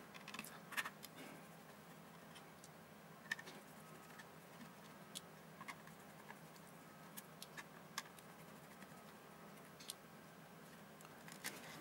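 Near silence broken by faint, scattered small clicks and taps of plastic and circuit board being handled as a multimeter's LCD display holder is prised off its board.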